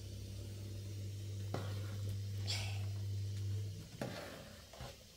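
Cooking on a gas burner: a pot of rice on the stove under a steady low hum, with a few light clinks and a brief hiss. The hum cuts off about four seconds in, and a spoon stirs and knocks in the aluminium pot.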